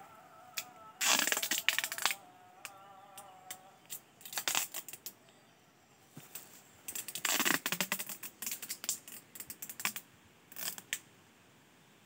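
Clear plastic grafting tape being pulled off its roll and stretched around a chestnut graft, crinkling and crackling in several short bursts, sealing the graft union against air.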